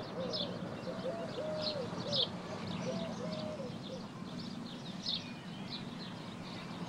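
Small birds chirping, with a pigeon cooing in a run of repeated notes that stops about halfway through, over a low steady hum.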